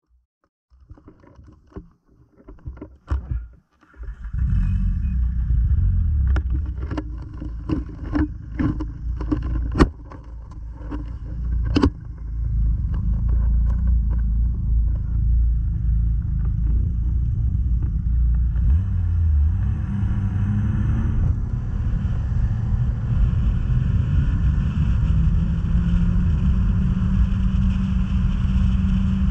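Snowmobile running along a snowy trail: quiet with a few clicks at first, then from about four seconds a loud steady drone of engine and track. Sharp knocks and rattles come several times in the first half, and the drone steadies later with its pitch slowly rising near the end.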